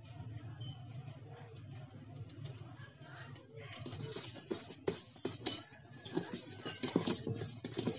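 Metal spoon stirring cake batter in a steel bowl, clicking and scraping against the metal; the stirring starts about three and a half seconds in and gets busier toward the end.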